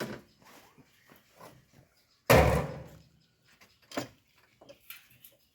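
A few knocks, with one heavy, loud thud about two seconds in that dies away over half a second, like something heavy dropped or slammed.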